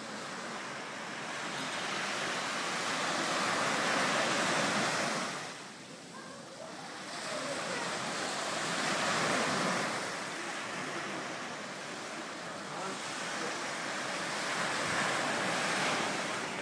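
Small sea waves breaking and washing up on a sandy beach, the surf swelling and fading every few seconds.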